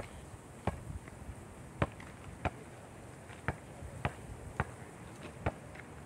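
A basketball being dribbled on hard dirt ground: a string of short, sharp bounces, roughly one every half second to a second, some fainter than others.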